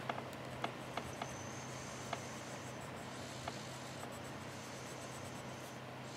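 Brown pencil drawing short strokes on graph paper: soft scratching with a few light ticks in the first half, over a faint steady low hum.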